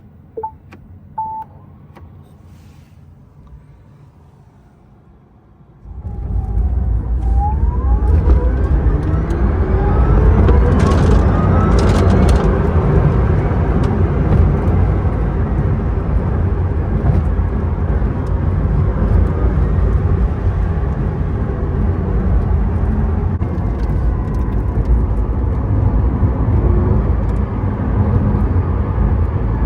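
Two short beeps, then from about six seconds in the Rimac Nevera electric hypercar pulls away: a loud rumble of tyre and wind noise, with the electric motors' whine rising in pitch as it accelerates, then running steadily at speed.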